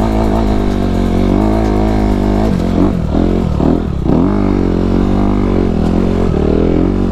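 Dirt bike engine running under throttle on a trail, the revs rising and falling with the rider's throttle, with a few quick drops and pickups about three to four seconds in.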